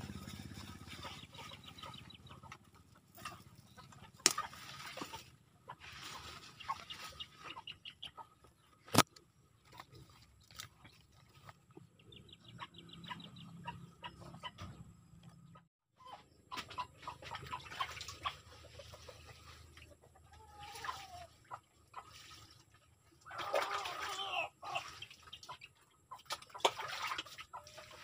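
Chickens clucking and calling on and off, with two sharp knocks, one about four seconds in and a louder one about nine seconds in.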